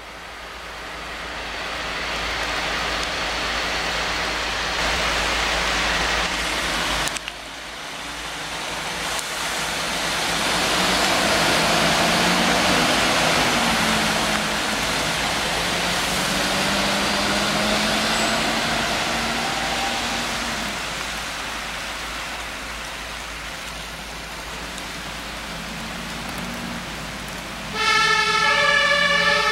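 Diesel engines of heavy fire engines pulling away and accelerating, their pitch rising and falling, over a steady hiss of tyres on a wet road. Near the end a two-tone emergency siren (Martinshorn) starts up and becomes the loudest sound.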